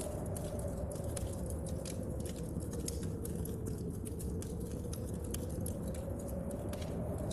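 Wood fire crackling in a stove, with many sharp irregular pops, over a steady low rumble of storm wind and rain. The wind's howl slowly sinks in pitch about halfway through and rises again.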